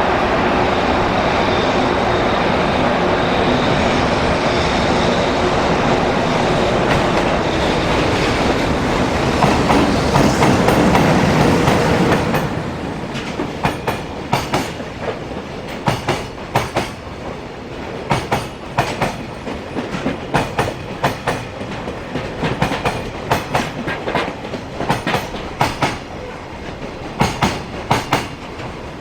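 Electric freight locomotive passing close by, loud and rising to a peak about eleven seconds in. It is followed by a long string of container flatcars rolling past, their wheels clicking rhythmically over the rail joints.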